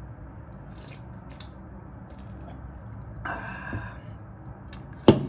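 A man drinking beer from a can: faint gulps, then a breathy exhale about three seconds in, and near the end a single sharp knock as the aluminium can is set back down on the table.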